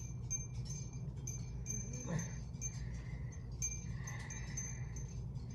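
Faint high tinkling, short repeated tones, over a steady low hum.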